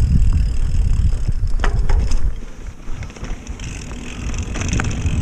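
Mountain bike riding a dirt trail: wind rumbling on the handlebar microphone, with tyre noise and a few sharp rattles from the bike. The rumble eases off for a couple of seconds in the middle and comes back near the end.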